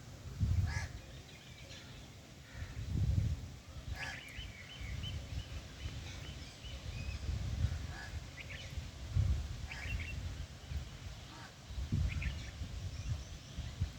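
Birds giving short scattered calls, several in a quick run about four seconds in and more near the end, over a repeated low rumble.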